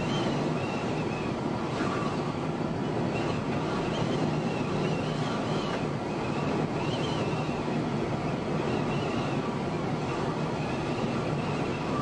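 Steady road and wind noise from a vehicle driving at highway speed in strong wind, with a faint high whistle that wavers in pitch.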